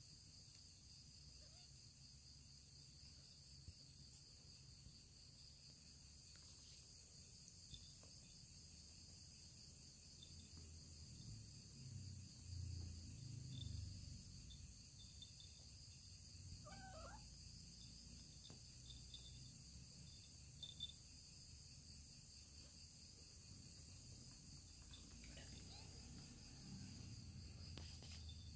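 Near silence: faint steady high-pitched insect chirring in the background, with one faint short kitten mew about two-thirds of the way in.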